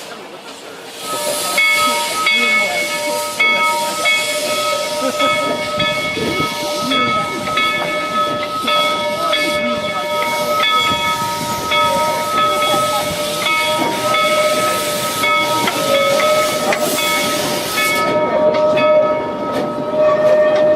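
Steam locomotive's chime whistle blowing a long, steady chord over loud steam hiss. It starts about a second in. The hiss stops near the end while the whistle tones carry on.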